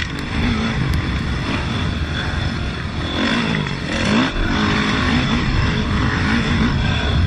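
2005 Yamaha YZ450F's four-stroke single-cylinder engine running hard under a rider, its pitch rising and falling repeatedly as the throttle is worked around the track.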